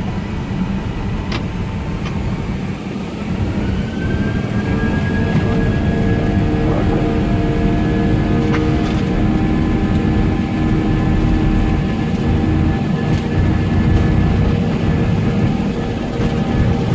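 Airbus airliner's jet engines spooling up to takeoff power, heard inside the cockpit: a heavy low rumble, with a whine that rises about four seconds in and then holds steady as the aircraft rolls down the runway.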